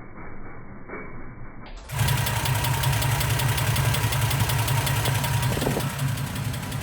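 Freshly rebuilt engine of a Toyota FJ60 Land Cruiser running steadily, with a fast regular ticking over a low hum. The owner wonders whether this is an engine knock. About two seconds in the sound turns suddenly much louder and clearer.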